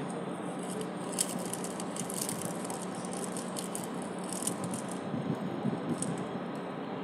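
A crinkly food wrapper crackling and rustling in the hands as it is unfolded, in quick irregular crinkles that thin out after the middle and come back briefly near the end, over a steady background hum.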